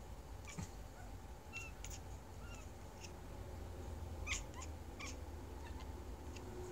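Orange tabby kitten chattering: a scattering of short, faint chirps and clicks, the loudest a little past the middle. This is the excited chatter a cat makes while staring at something it would like to catch.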